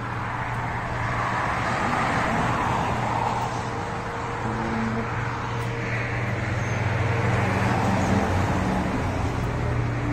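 Steady outdoor background noise: a constant low hum under a rushing noise that slowly swells and fades.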